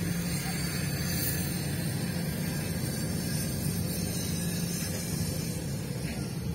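Steady road and engine noise of a moving car, heard from inside the cabin, with a low hum under an even rush.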